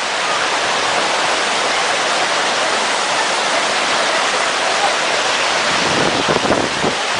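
Waterfall crashing, a steady loud rush of falling water.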